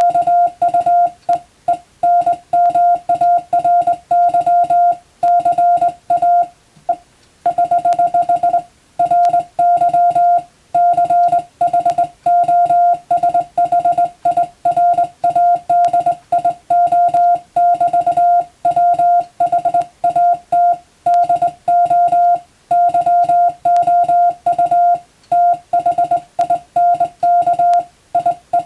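Morse code (CW) sent as a single mid-pitched tone, keyed on and off in rapid dots and dashes, with a brief break about seven seconds in.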